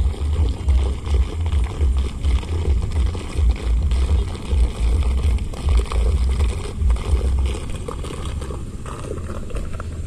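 Heavy, uneven low rumble of wind buffeting the microphone, easing near the end, over a steady hiss. A small wooden motorboat is passing under power.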